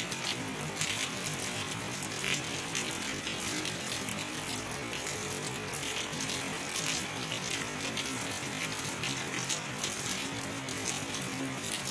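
Steady rain falling: an even hiss with many irregular drop ticks close by.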